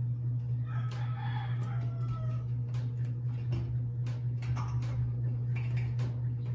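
A rooster crows once, starting about a second in and lasting about two seconds, over a steady low hum and light clicks from metal furring channels being handled.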